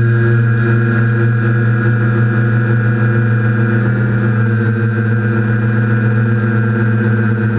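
TBS Discovery quadcopter's electric motors and propellers humming steadily in flight, heard up close from the camera on board: a loud, steady set of tones.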